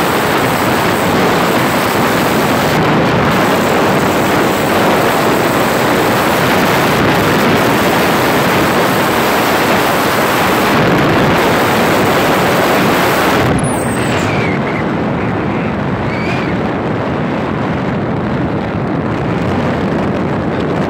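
Steady rush of wind on the microphone mixed with road noise from a vehicle travelling along a dirt road. About two-thirds of the way through the hiss eases off and a few faint chirps come through.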